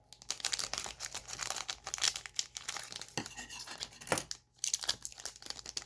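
A trading-card pack wrapper being crinkled and torn open by hand: a run of crackling and ripping, with a short pause about four and a half seconds in.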